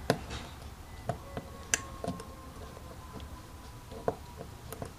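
Small metal parts of a Tecumseh carburetor clicking and tapping together as it is put back together by hand: a handful of light, scattered clicks, the sharpest about two seconds in and again about four seconds in.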